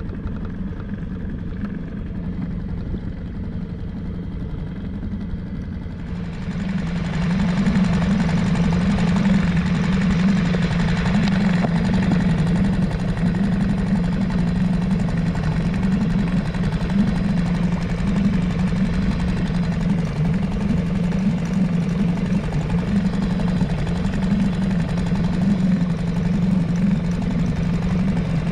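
Small boat outboard motor running steadily, turning louder with more hiss about six seconds in.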